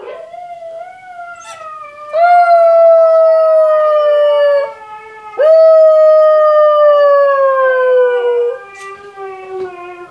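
Husky puppy howling along with husky howls played on a TV. There are two long, loud howls, each rising at its start and then falling slowly in pitch, with a quieter, lower howl underneath.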